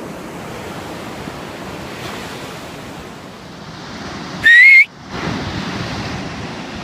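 Sea surf breaking and washing up the sand in a steady rush, with a short, very loud rising whistle about four and a half seconds in.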